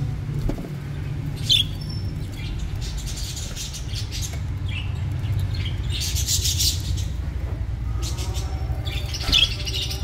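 Budgerigars chirping in a few short, high calls over a steady low rumble.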